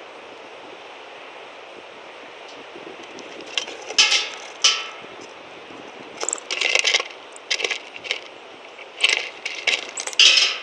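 Red-winged blackbird pecking and rummaging through sunflower seeds and peanut shells on a wooden feeder board close to the microphone: three clusters of sharp clicks, cracks and rattles, the first about four seconds in and the others near the middle and the end.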